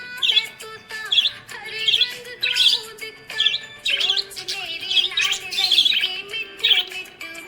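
Budgerigar chirping in quick, repeated short calls, about two a second, over background music with a held, stepping melody.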